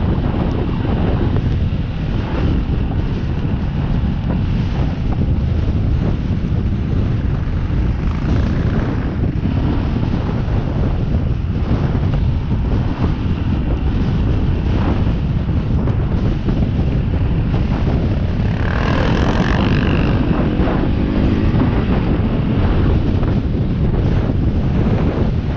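Wind buffeting the microphone of a camera on a moving trail bike, over the bike's engine running as it rides. A brief louder burst comes about nineteen seconds in.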